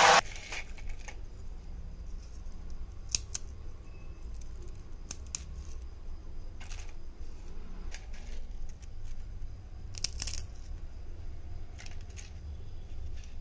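Crisp fried banana chips crackling and rustling as fingers pick them up and crumble them, in scattered short crackles a second or so apart over a low steady hum.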